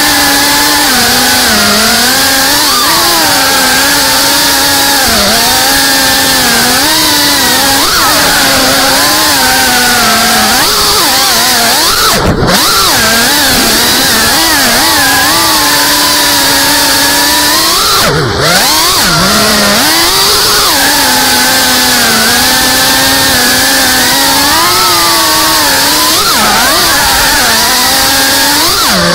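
GEPRC CineLog35 FPV drone's brushless motors and propellers buzzing loud and close, recorded on board. The pitch rises and falls continually with the throttle. Twice, about 12 and 18 seconds in, it drops sharply and climbs straight back: quick throttle chops during the manoeuvres.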